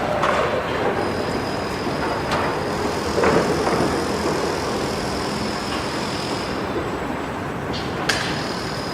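Construction machinery running with a steady mechanical din, a faint high whine over it, and a few scattered knocks. Sharp knocks start about 8 seconds in.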